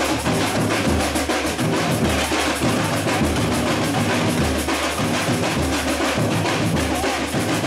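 Samba batucada percussion: tamborins and agogô bells played fast over a deep bass drum beat that falls about once a second.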